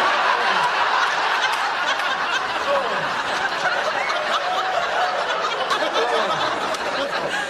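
Studio audience laughing in one long, steady wave, with individual laughs standing out now and then.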